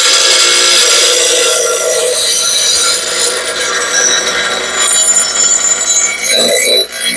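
Grinding wheel grinding the edge of a steel lawnmower blade: a loud, harsh grinding with a high ringing that starts abruptly, runs steadily and drops briefly near the end.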